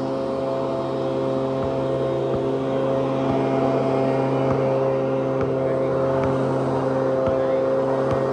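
A steady engine drone at an even pitch, with a basketball bouncing on the asphalt court now and then as it is dribbled and shot.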